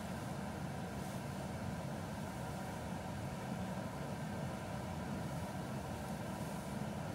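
Steady low hum of a running motor, even throughout with no starts, stops or changes.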